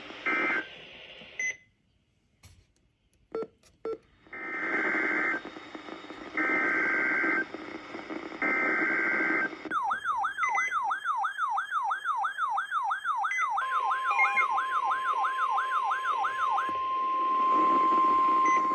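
Emergency Alert System broadcast: three roughly one-second bursts of harsh, buzzy SAME header data tones, then a fast warbling, siren-like tone sweeping up and down about three times a second. About 14 s in, a steady single alert tone, the NOAA Weather Radio warning alarm, joins it and holds after the warble stops.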